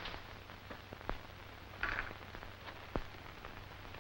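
Faint hiss and low hum of an old film soundtrack, with a few soft clicks.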